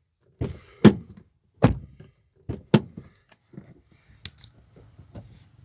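A 2022 Mazda CX-5's rear door latch and handle clicking and knocking as its child safety lock is worked. About five sharp clacks come in the first three seconds, then a few fainter ticks.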